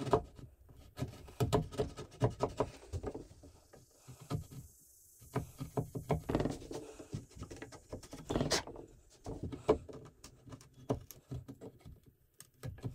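A wood chisel paring and scraping out the rounded corner of a router-cut groove in a white pine 2x4, squaring it to 90 degrees: a run of irregular short scrapes and taps with a brief lull partway through.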